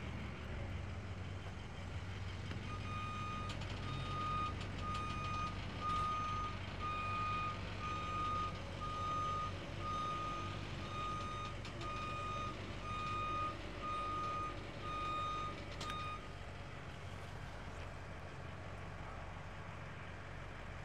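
Vehicle backup alarm beeping about once a second, over a steady low engine hum; the beeping stops about three-quarters of the way through while the hum carries on.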